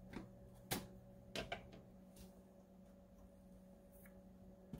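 Near-quiet kitchen with a faint steady hum and a few light knocks of kitchenware, such as a spatula or plate being set down, about a second and a second and a half in.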